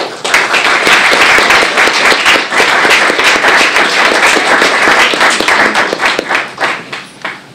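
Audience applauding: many hands clapping together, starting at once, holding steady for about six seconds and thinning out near the end.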